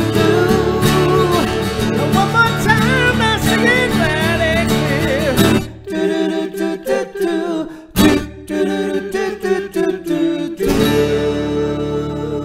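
Acoustic guitar song with a man singing. About six seconds in the playing thins to a few separate strummed chords, and a final chord near the end rings out and fades.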